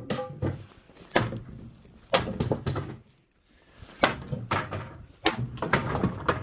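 A series of loud, sharp knocks, about six of them at uneven intervals roughly a second apart, each ringing briefly.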